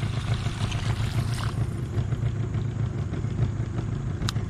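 Small boat engine idling with a steady low drone, and a sharp click near the end.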